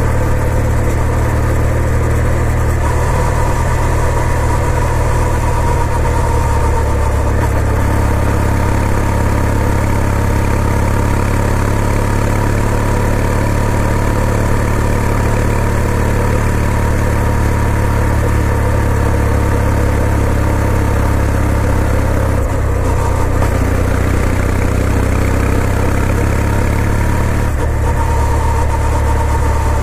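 Kawasaki W800 motorcycle's air-cooled parallel-twin engine running steadily. Its note changes briefly about two-thirds of the way through and again near the end.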